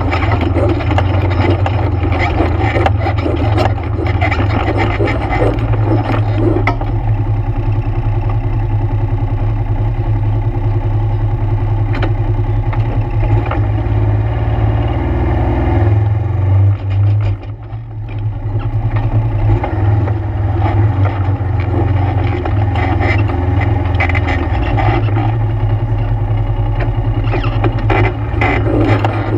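ATV engine running under steady throttle on a trail ride. About two-thirds of the way through it briefly drops off, as if the throttle is let off, then picks up again.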